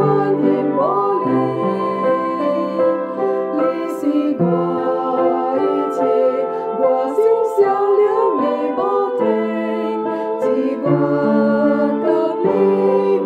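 A hymn sung in Hokkien to keyboard accompaniment, a slow melody with held notes.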